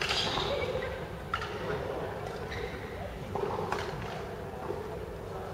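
Badminton rallies: several sharp racket hits on the shuttlecock at irregular intervals, echoing in a large sports hall over a steady background murmur.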